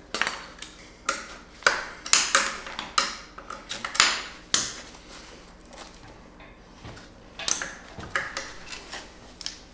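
Hand tools clicking and clinking against metal in irregular sharp strikes, some ringing briefly, as a seized bolt is worked loose from the transmission case. The strikes come thickest in the first half, thin out in the middle and pick up again near the end.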